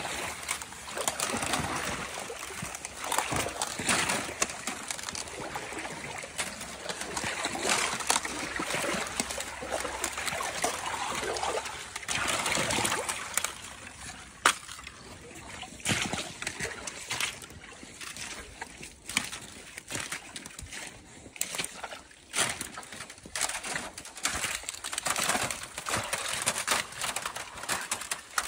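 Boots wading through shallow swamp water: irregular splashes and sloshes, with a few sharp clicks. Busier and louder in the first half, sparser after.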